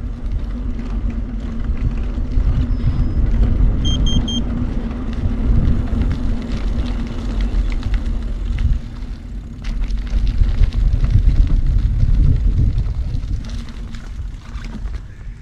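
Low rumble of wind on the handlebar-mounted action camera's microphone and of a trekking bike's tyres rolling over rough, cracked asphalt. About four seconds in come three short high electronic beeps. The rumble eases off near the end as the bike slows to a stop.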